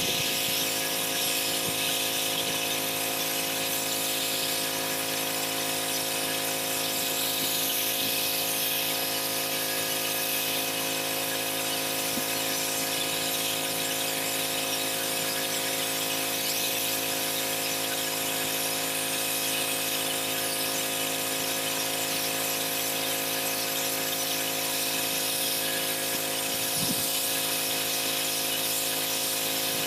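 Pressure washer running steadily, a constant machine hum under the high hiss of the water jet spraying the driveway.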